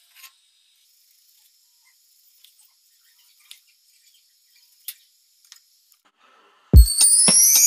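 A few faint, separate taps of a kitchen knife cutting through a lemon onto a wooden cutting board. Near the end, loud music with a deep, regular beat starts suddenly.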